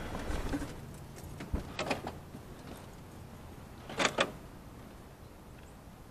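Low hum of a car fading away, then a few clicks and knocks inside the car, with a sharp double click about four seconds in.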